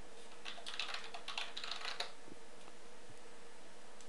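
Typing on a computer keyboard: a quick run of keystrokes for about a second and a half, then two isolated clicks.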